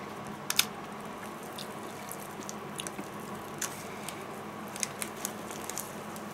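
Scattered small crackles and clicks as a piece of fried chicken is pulled apart by hand over wrapping paper, the sharpest about half a second in, over a steady low hum.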